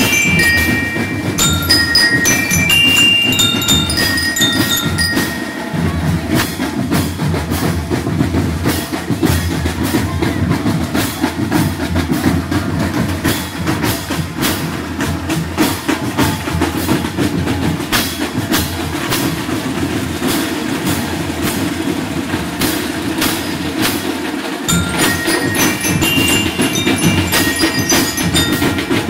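A marching band's bell lyres play a bright, ringing melody over a drum beat. For most of the middle stretch the lyres drop out and only the drumming carries on, and the lyres come back in near the end.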